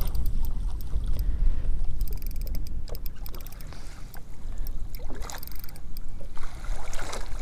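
Steady low wind rumble on the microphone and water lapping against a small boat's hull, with scattered light clicks and ticks.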